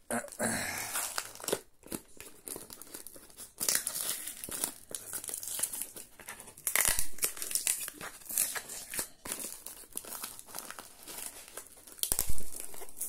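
A taped cardboard parcel being torn open by hand: cardboard and packing tape crinkling and ripping in irregular bursts, with a louder burst near the end.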